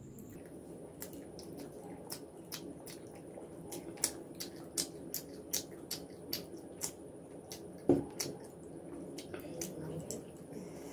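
Close-up eating sounds: wet chewing and lip smacking of a mouthful of fried rice and chicken eaten by hand, with a string of sharp mouth clicks and one louder knock about three-quarters of the way through.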